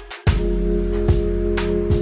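Background music: held chords over a steady beat of about one strike a second.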